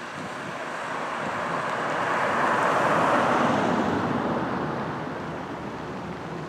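A car driving past on the street, its noise rising to a peak about three seconds in and then fading away.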